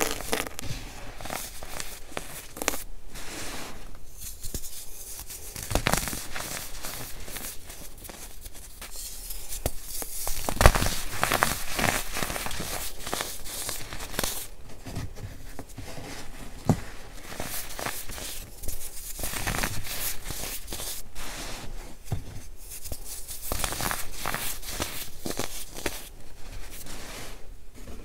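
Hands crushing pressed baking-soda blocks and digging through loose baking-soda powder: dry crunching and crumbling with many sharp cracks, the loudest a little over ten seconds in.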